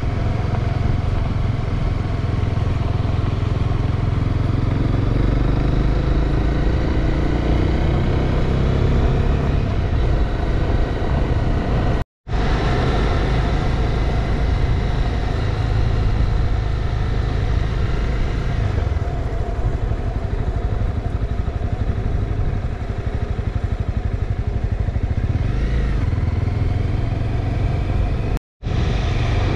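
Honda CB300R's single-cylinder engine running while riding, with a steady engine hum; about five seconds in its note rises for a few seconds. The sound cuts out to silence briefly twice, near the middle and just before the end.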